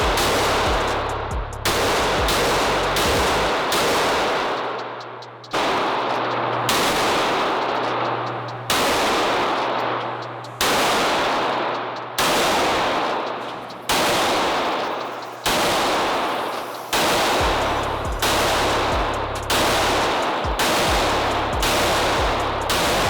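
Pistol shots fired over and over at irregular intervals, a few in quick succession, each ringing out in a long echoing tail. The gun is a SIG Sauer P320 Legion.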